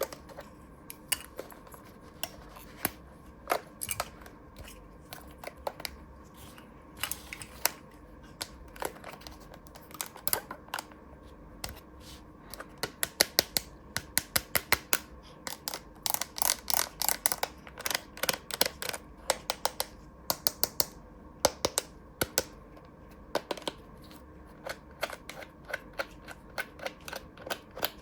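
Small plastic toy pieces clicking and tapping as they are handled. The clicks are scattered at first, come thick and fast through the middle, then thin out again near the end.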